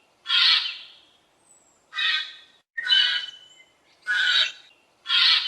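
Eurasian jay giving its harsh, rasping screech, five calls each about half a second long, repeated roughly once a second.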